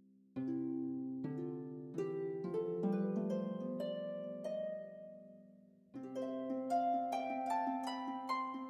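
Background music: a gentle melody of plucked-string notes that starts a moment in, dies away for a second or so past the middle, then picks up again with a new phrase.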